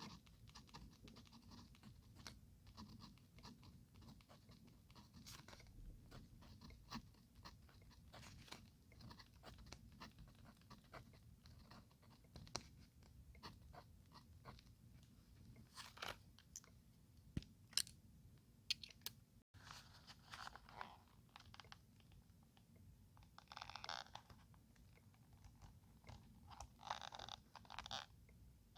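Faint paper-crafting sounds: scattered small taps and crinkles of paper and stationery being handled, with three short rustling rubs in the second half.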